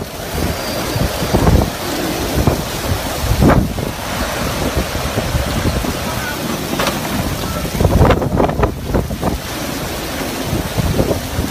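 Violent storm wind gusting hard and buffeting the microphone, with a dense rush of wind-driven rain; a stronger burst of gusts hits about eight seconds in.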